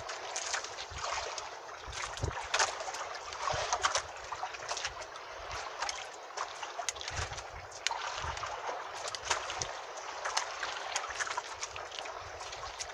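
Water lapping and splashing against a small outrigger fishing boat, with frequent small clicks and knocks and a few low thumps from the boat.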